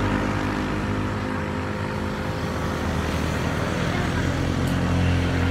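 An engine running steadily, a low, even drone.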